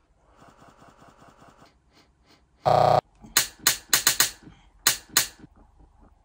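A brief, loud tone that starts and stops abruptly, followed by a quick run of about eight sharp clicks over two seconds.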